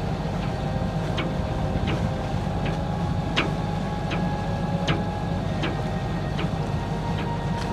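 Sailboat's inboard engine running steadily under motor, with a light tick repeating about every three-quarters of a second.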